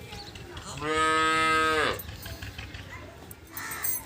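A cow mooing once, a single call of about a second, loud and steady in pitch, sliding down as it ends.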